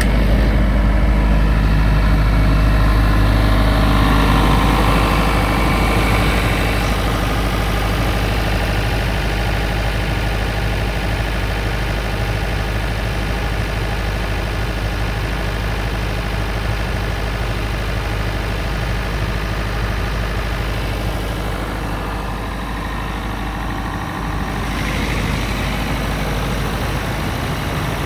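JCB G116QS skid-mounted diesel generator's four-cylinder engine running at a steady speed, a deep constant hum. The sound dips a little about three-quarters of the way through, then comes back up.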